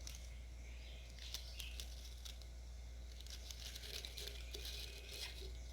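Faint crinkling rustles and light clicks of food being handled and dropped into a container, over a steady low hum.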